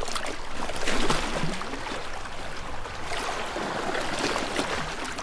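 Water splashing and flowing, an uneven rush that is loudest about a second in.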